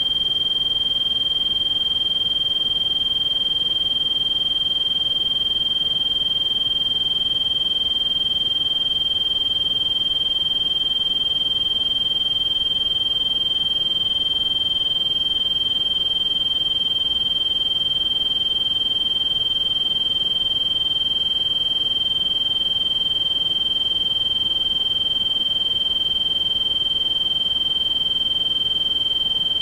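Synthesized tinnitus-masking sound: a steady, high-pitched pure tone held without change over a softer bed of pink noise.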